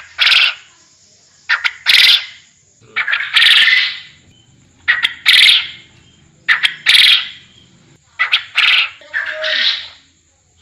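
Quail calling over and over, about every one and a half seconds: each call is one or two quick sharp notes followed by a longer harsh note, repeated about seven times.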